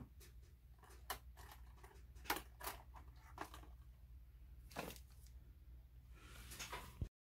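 Faint clicks and rustles of a clear plastic lure box being handled and hung on a wall hook, scattered over a few seconds above a low steady hum. All sound cuts off abruptly near the end.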